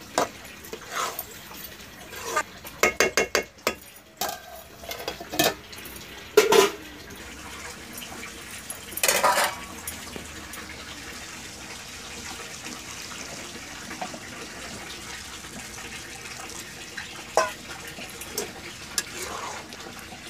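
Metal spatula scraping and knocking against an iron kadai as a cabbage and potato curry is stirred, with a quick run of clatters early on and a couple of louder knocks. In the second half a steady hiss comes from the pan, with only occasional clinks.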